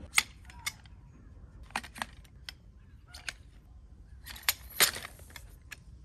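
Sharp metal clicks and clacks of a folding camp chair's shock-corded pole sections snapping together and seating into the frame's hub. About nine separate clicks come at uneven intervals, the loudest near the start and about five seconds in.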